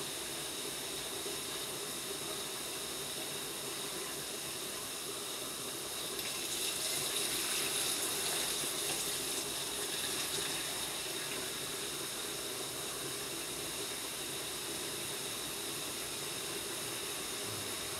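Water poured from a plastic pitcher into a blender jar of chopped cucumber, from about six to ten seconds in, over a steady background hiss.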